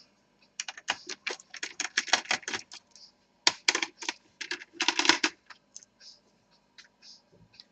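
Rapid small clicks and taps of hands and a small tool working on a laptop's Wi-Fi module, in clusters for the first five seconds, then a few scattered ticks.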